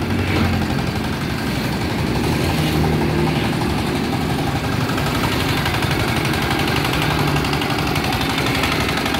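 Single-cylinder radiator-cooled diesel engine of a two-wheel hand tractor running steadily as the tractor is walked along and turned.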